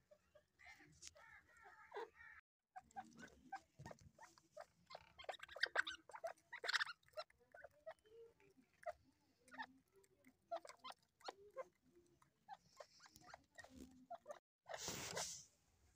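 A teetar (partridge) giving soft, short calls and quiet clucks, among scattered clicks and rustles, with a brief loud rush of noise near the end.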